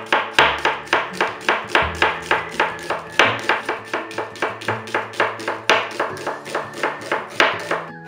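Kitchen knife thinly slicing a red onion on a bamboo cutting board: a steady run of blade knocks against the board, about four a second, stopping near the end.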